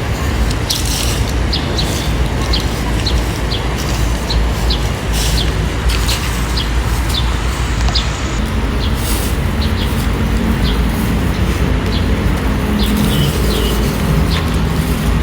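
Steady low rumble with short, high bird chirps coming about once or twice a second.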